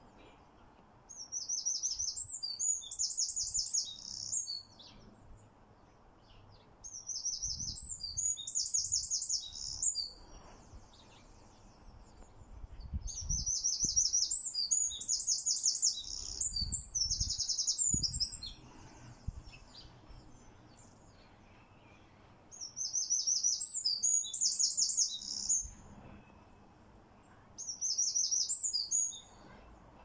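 A wren singing: five bursts of rapid, high-pitched trilling song, each a few seconds long, with short pauses between them.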